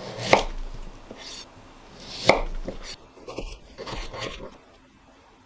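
Knife chopping sweet potato on a cutting board: two sharp cuts about two seconds apart, then a few lighter cuts, stopping about four and a half seconds in.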